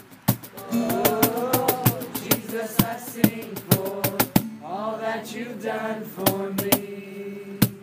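A group of young voices singing with acoustic guitar accompaniment and a cajon struck in a steady beat. The drumming stops about four and a half seconds in while the singing and a held chord carry on, with one last cajon hit near the end.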